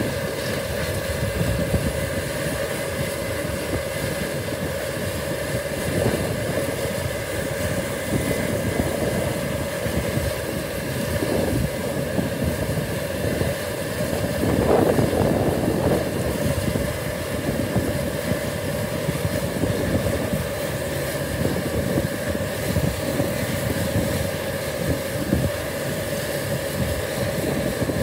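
Case IH Axial-Flow combine harvester running under load while harvesting: a steady engine and threshing-machinery drone with a constant whine, growing louder for a moment about halfway through.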